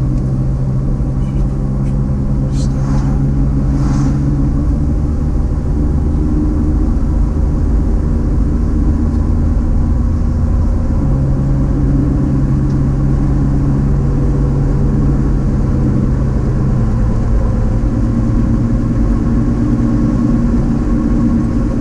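A car driving, its engine humming steadily over road noise, with the engine's tone changing a few times as it goes. A few faint clicks in the first few seconds.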